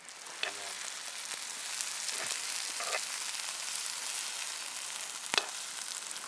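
Sliced onions and red pepper sizzling in a hot frying pan over campfire embers, a steady crackling hiss. A single sharp crack comes about five seconds in.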